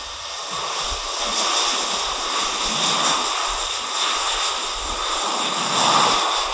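Jet engines of an Airbus A320-family airliner as it speeds along the runway: a steady rushing noise with a faint high whine, growing louder toward the end.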